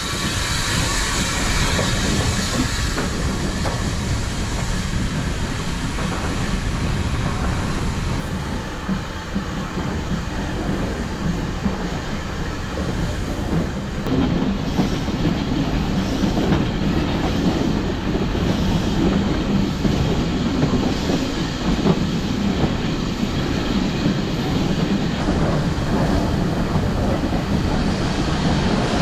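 Heritage steam train running on the line, a steady rumble with the wheels clicking over the rail joints. A loud hiss of steam comes in the first few seconds.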